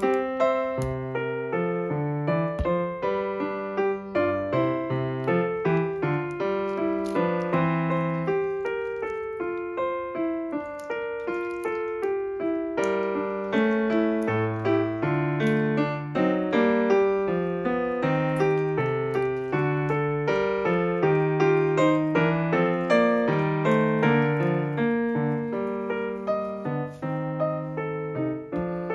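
Background piano music, a steady flow of notes that never stops.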